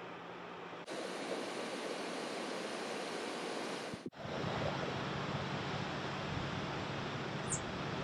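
Steady rushing water from a hydroelectric dam's outflow, changing abruptly about a second in and again about four seconds in. A low hum runs under it in the second half.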